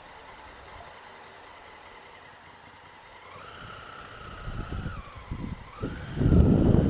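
Honda Africa Twin CRF1000L's parallel-twin engine idling quietly, then pulling away, its note rising about three seconds in. Wind buffets the helmet camera's microphone from about halfway on and becomes loud near the end.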